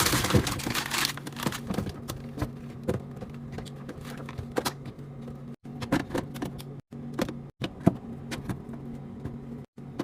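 Groceries and containers being put into a fridge: a rustle of plastic packaging at the start, then a string of light clicks and knocks as items are set down, over a steady low hum.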